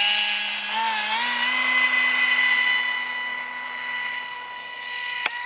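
Radio-controlled Horten flying-wing model's motor and propeller at full throttle for takeoff: a high, steady whine that climbs in pitch about a second in, then holds and grows fainter as the model flies away. A single sharp click near the end.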